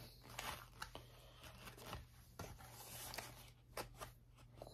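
Near silence with faint rustles and light clicks of a cardboard takeout box being held open and handled.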